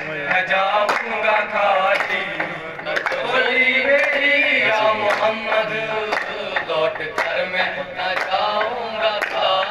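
Young men's voices singing a qawwali, accompanied by group hand clapping at about one clap a second.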